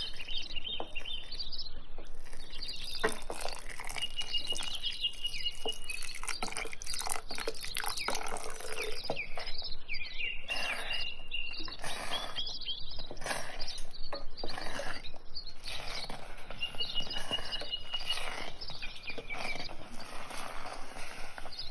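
Birds chirping, with a short rapid trill three times, over a steady crackly patter of small clicks, as in an outdoor ambience track.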